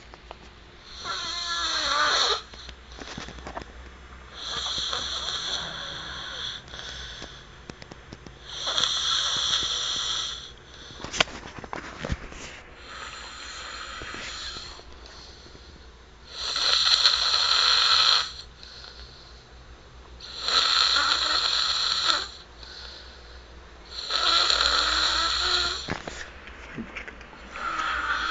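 A sleeper snoring loudly and rhythmically: about eight long snores, each lasting a second and a half to two seconds, about every four seconds, with quieter breathing between them.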